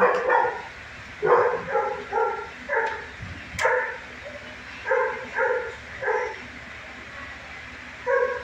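A dog barking in short, repeated barks, mostly in pairs, with a pause of about two seconds near the end.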